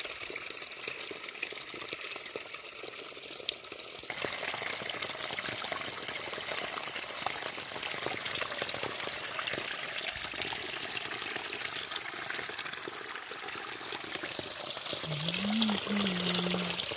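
Water gushing steadily out of a borewell's steel casing and splashing onto the stones around it, with no pump running: the bore is flowing on its own. The sound gets louder about four seconds in.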